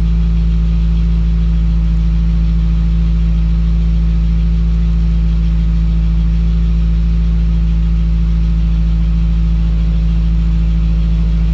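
2017 Subaru WRX's turbocharged flat-four engine idling steadily after a cold start, with a cylinder 3 misfire (code P0303) being detected.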